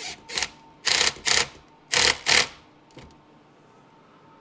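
Hand ratchet wrench clicking in short back-and-forth strokes: three quick pairs of strokes in the first two and a half seconds, then it stops.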